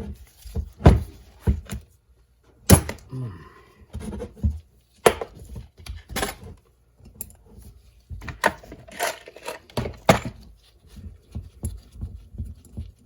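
Hand tools and metal engine parts clinking and knocking: an irregular run of short knocks and clicks while a 6 mm bolt on the CR250 cylinder's power valve is worked loose.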